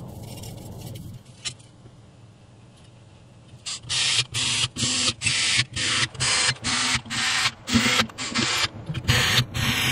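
Short scraping strokes by hand, about two a second, begin about four seconds in. They come from work on a wire during a hashboard repair. Before them a faint steady hum runs with a faint whine falling in pitch.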